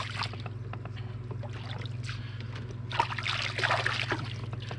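Lake water splashing and trickling as hands work the net at the water's edge, busiest about three seconds in, over a steady low hum.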